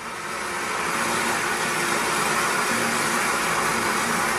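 Live-concert audience applause from a 1967 record, played back over hi-fi loudspeakers, fading in at the start and then holding steady as a dense clatter of clapping.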